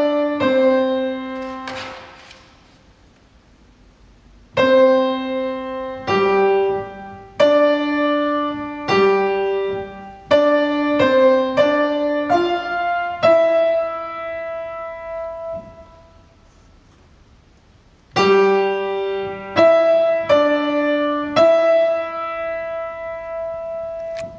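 Piano playing the tenor line of a choral piece as a single melody of struck, decaying notes, in two phrases with a pause of about two seconds before each and a long held note near the end.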